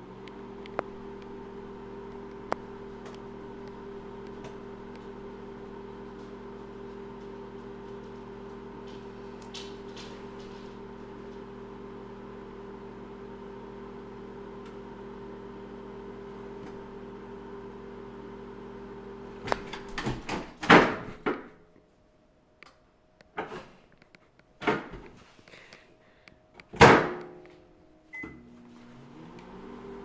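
Microwave oven running with a steady hum. About two-thirds of the way through the hum stops and there are several loud knocks and bangs, then a short beep and the hum starts up again near the end.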